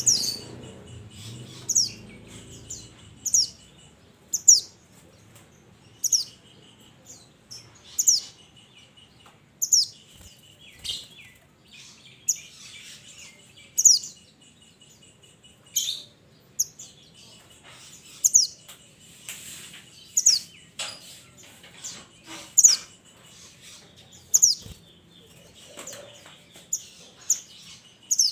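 Pied bushchat calling: short, sharp, high notes that sweep downward, repeated about every one and a half to two seconds, over a faint steady trill.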